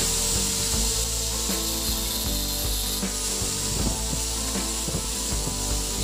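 Electric angle grinder running steadily, its disc grinding against the steel shaft of a washing-machine gearbox.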